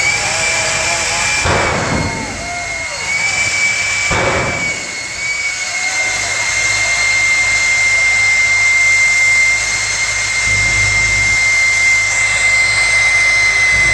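Jet-powered semi truck's turbine engine running with a steady high whine. Two bursts of noise in the first five seconds come as flames shoot from its exhaust stacks, and a deeper rumble joins about ten seconds in as the truck starts to roll.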